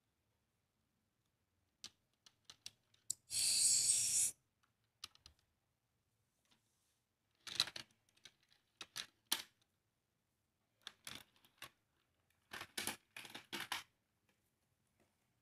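Small plastic clicks, taps and scrapes as a die-cast toy car is handled and pushed across a plastic toy car-wash playset. About three seconds in there is one louder scraping rush lasting about a second, and later come short clusters of rattling clicks.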